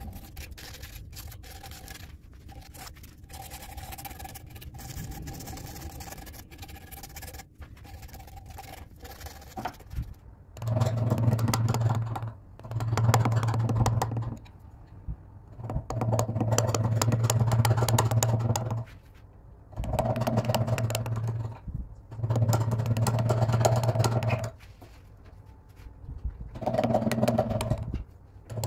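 Sandpaper rubbed by hand over carved wood, a soft scratching. From about ten seconds in, a small electric carving tool hums in six bursts of one to three seconds as its chisel cuts into the wood.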